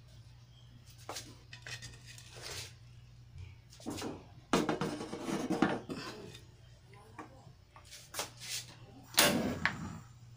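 Metal cooking pot handled and set onto a stainless steel stove top: scattered clanks and scraping, a busier stretch of clatter a little before the middle, and a loud knock near the end.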